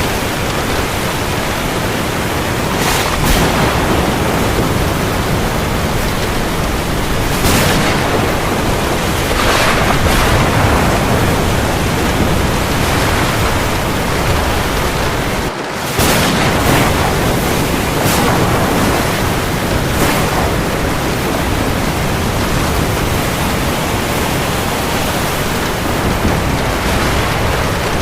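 Steady heavy rain over the sea, with waves rising and washing in now and then, and a brief drop in the sound about halfway through.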